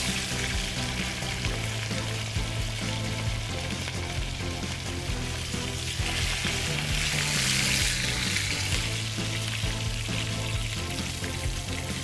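Food sizzling as it fries in a pan over a wood campfire, the sizzle growing louder about six to eight seconds in. Background music with a slow, steady bass line plays underneath.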